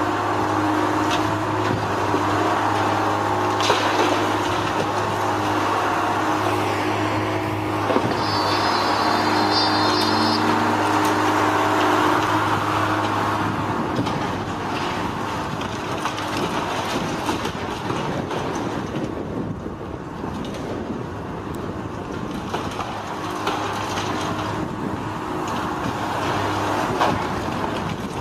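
Heavy demolition machinery running at a demolition site: a steady engine drone that drops away about halfway through, leaving a rougher rumble, with a few scattered knocks of concrete debris.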